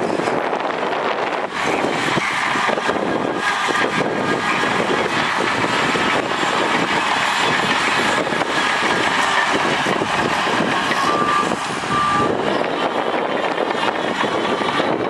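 Heavy diesel earthmoving machinery running hard while working sand, a steady loud engine noise, with two short beeps near the end.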